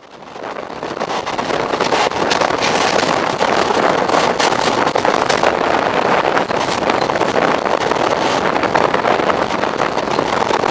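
Passenger train running, a loud steady rush of wheel and wind noise with scattered clicks, fading in over the first second or two.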